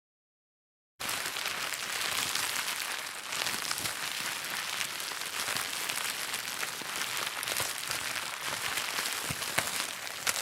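Plastic bag crinkling and rustling continuously, a dense run of small crackles, starting about a second in.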